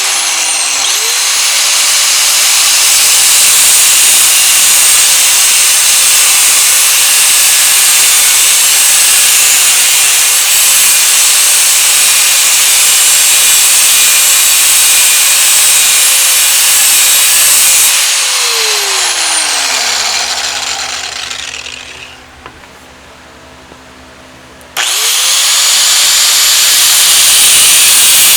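Angle grinder with a cut-off wheel cutting through a metal part in a vise: a steady motor whine under loud grinding hiss, switched off about 18 seconds in and winding down with a falling whine, then started up again about seven seconds later and cutting on.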